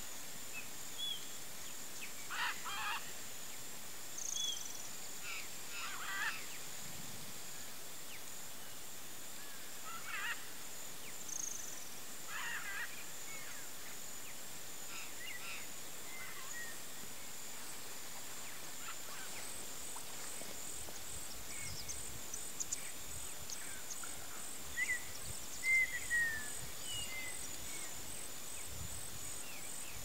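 Birds calling in woodland: short harsh calls every few seconds, then scattered thin chirps that grow louder toward the end, over a steady high insect buzz.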